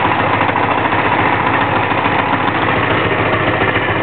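1984 Honda Magna V65's 1100 cc V4 engine idling steadily on a little over half choke while still cold.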